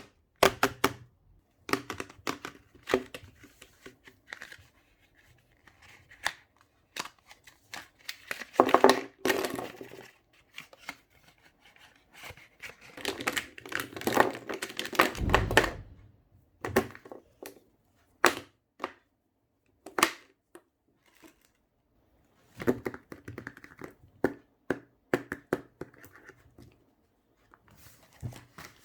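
Packaging of a set of pastel highlighters being opened and handled: scattered sharp clicks and knocks, with two longer stretches of rustling, one ending in a dull thump about halfway through.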